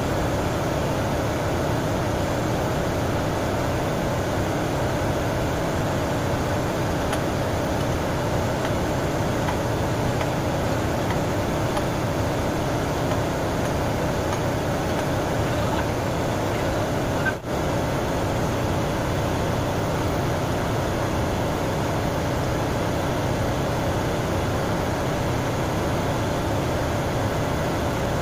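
Steady engine-room machinery drone from running equipment aboard a ship, a continuous, even noise with one brief dip about two-thirds of the way through.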